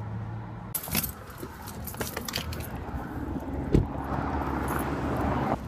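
A car engine idles and is switched off within the first second. Then keys jangle and click as the car is left, and a car door shuts with one heavy thump nearly four seconds in.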